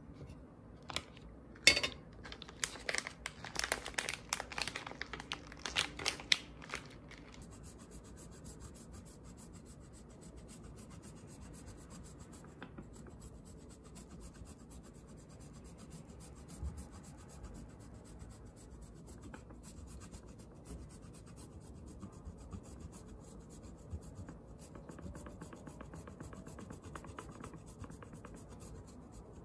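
Grana Padano cheese being grated over a plate of pasta: a run of loud rasping scrapes with a sharp tap in the first few seconds, then fainter scraping.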